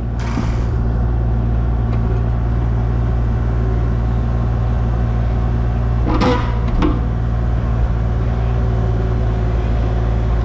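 Mini excavator's diesel engine running steadily under hydraulic load, heard from inside the cab as a loud, even low hum that rises in the first half second. About six seconds in there is a brief metallic clank.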